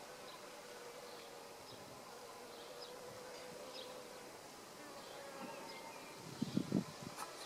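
A faint, steady, insect-like buzz holding one slightly wavering pitch, with a few soft knocks near the end.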